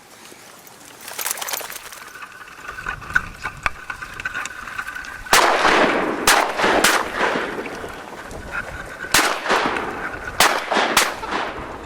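Hunters' shotguns firing at ducks: a volley of about seven sharp shots with echoing tails, three close together midway and four more near the end.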